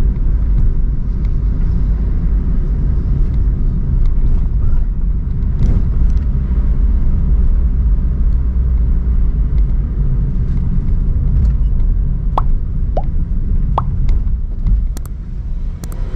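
Steady low rumble of a car driving, engine and road noise. A few short high chirps come about three-quarters of the way through.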